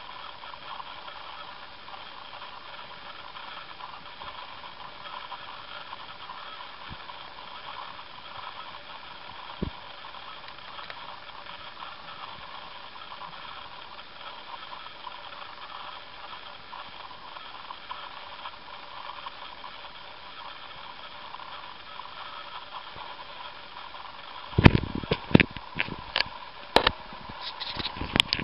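A hamster gnawing a monkey nut, making a run of sharp cracks and crunches on the peanut shell in the last few seconds, over a steady faint hiss.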